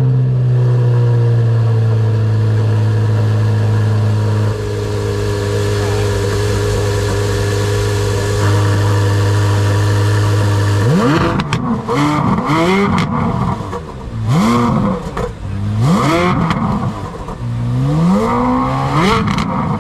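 A car engine held at a steady raised rev for about eleven seconds, then blipped about six times in quick succession, each rev rising and falling in pitch.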